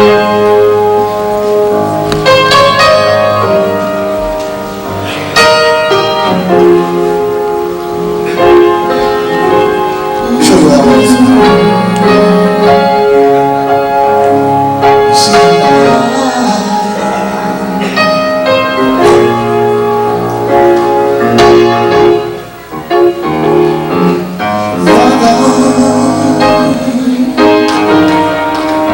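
Slow gospel music on a piano-like keyboard, with sustained chords and melody notes struck every second or two, as an instrumental introduction with no singing.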